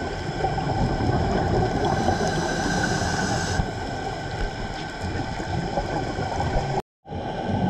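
Steady underwater gurgling and bubbling wash, heard muffled through a dive camera's housing. It drops out briefly about seven seconds in.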